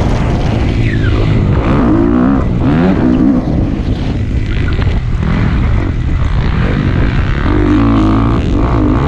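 Motocross dirt bike engine running hard, its pitch rising and falling repeatedly as the rider accelerates and shifts, heard from on the bike over a steady low rumble.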